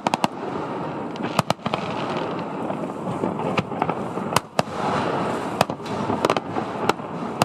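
Aerial fireworks display: sharp bangs at irregular intervals, some in quick pairs, over a continuous dense crackle and rumble.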